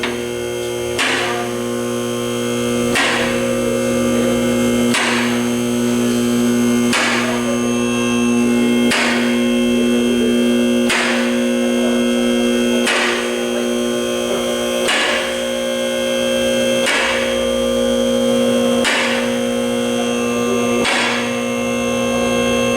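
Electric motor and hydraulic pump of a car lift running steadily as it raises a car. A sharp metallic clack comes about every two seconds as the lift's safety locks ratchet past each notch.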